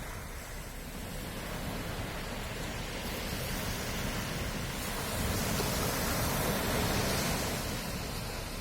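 Sea waves surging and washing on the shore in a steady hiss, with one wave swelling louder midway and easing off near the end.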